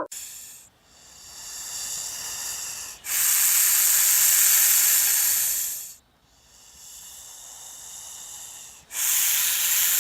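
Snake hissing in slow breaths: a softer hiss, then a loud one lasting about three seconds, the pair heard twice.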